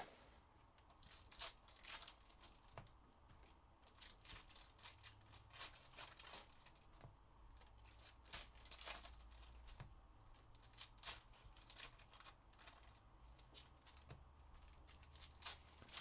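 Faint, irregular crinkling and tearing of foil trading-card pack wrappers being opened by hand.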